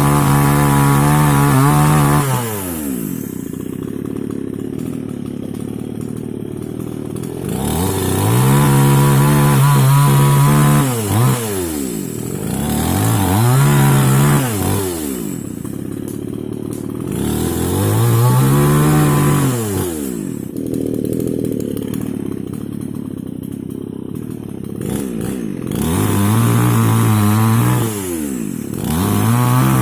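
Mini two-stroke chainsaw engine revved to full throttle in repeated bursts of a few seconds, about five times, dropping back to idle between them with a falling pitch.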